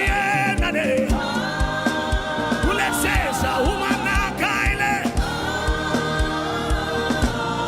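Gospel worship music: voices singing over keyboard with a steady kick-drum beat.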